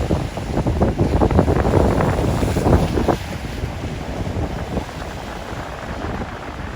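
Wind buffeting the microphone over Lake Erie waves washing in at a flooded shore; the buffeting eases about three seconds in.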